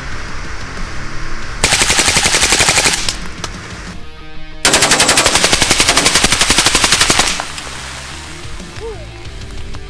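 Gold-plated AK-47 (7.62×39 mm) firing on full auto: a short burst about a second and a half in, then a longer burst of about three seconds, the shots coming in a fast even rattle.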